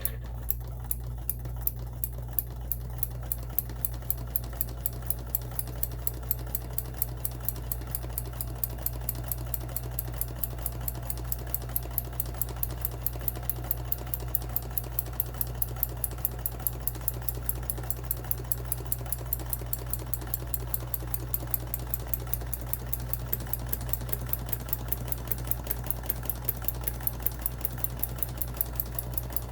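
Vintage Kenmore sewing machine running steadily while stitching a buttonhole: a low motor hum with an even, rapid clicking of the needle mechanism.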